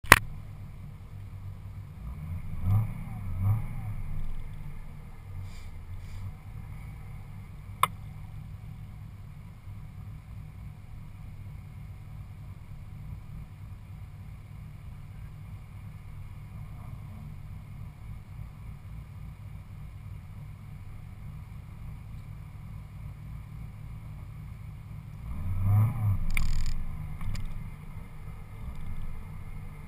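Supercharged 6.2-litre LSA V8 of a Cadillac CTS-V coupe with aftermarket Stainless Works and Borla exhaust, heard from inside the cabin, idling with a steady low rumble. Two short throttle blips come about three seconds in and a longer rev near the end, with one sharp click about eight seconds in.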